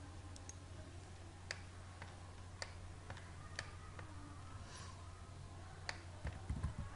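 Faint, scattered clicks of a computer mouse and keyboard, a few short sharp ones spread over the seconds, over a low steady hum.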